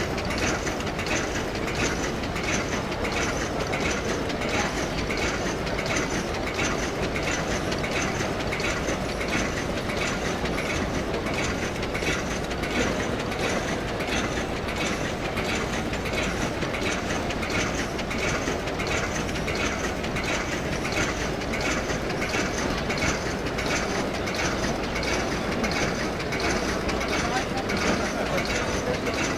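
Automatic wet-wipe sachet packing machine running, its mechanism cycling with a steady, fast, even clatter.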